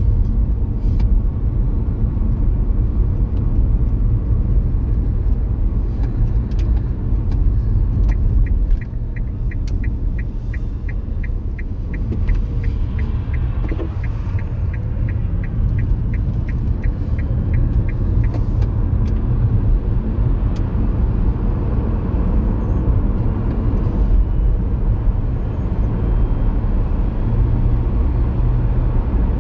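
Car driving at night, heard from inside the cabin: steady engine and road rumble. For about ten seconds in the middle a turn indicator ticks evenly, about three ticks a second, while the car slows and turns at a junction.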